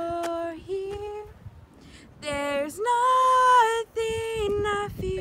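Girls singing unaccompanied in long held notes at a few different pitches, with short breaks between them.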